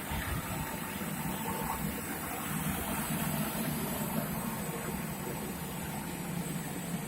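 Steady machine noise of gas-generator test-stand equipment running, an even rumble with a faint steady whine over it.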